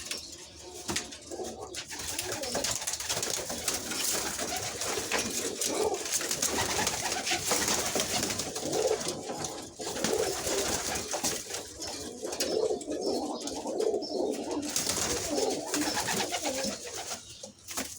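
Domestic pigeons cooing, repeated low coos overlapping one another through the whole stretch.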